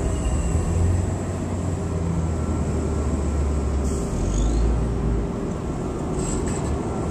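Low, steady rumble of street traffic, with a motor vehicle's engine running close by.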